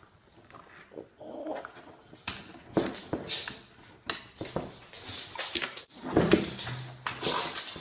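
An animal's irregular short cries and noisy bursts, the loudest cry about six seconds in.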